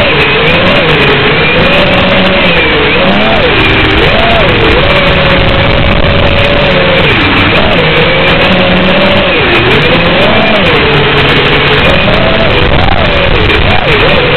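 FPV freestyle quadcopter's brushless motors whining under a heavy hiss, the pitch rising and falling with the throttle in repeated swoops.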